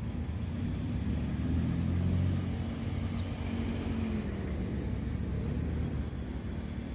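Low engine rumble of a passing motor vehicle over steady outdoor background noise, swelling a little about two seconds in and then easing off.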